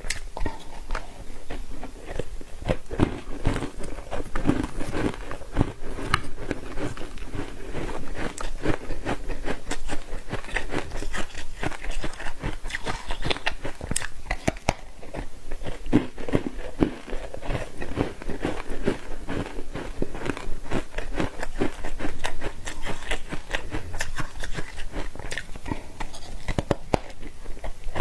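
Close-up crunching and chewing of ice dusted with matcha powder: a dense, continuous run of sharp, irregular bites and crunches.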